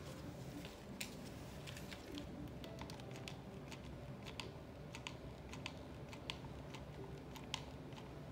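Faint, irregular small clicks and rustles of hands handling a grosgrain ribbon bow and a hot glue gun.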